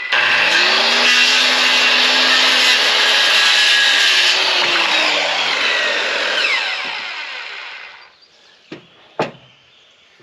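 Circular saw spinning up and cutting through the end of a wooden board, then winding down, its pitch falling over about three seconds after the cut. Two short knocks follow near the end.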